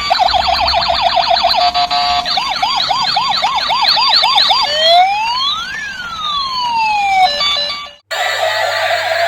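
Electronic siren cycling through its patterns: a fast yelp, then slower rising-and-falling wails, then long overlapping glides up and down. It cuts off abruptly about eight seconds in, and a different steady electronic tone follows.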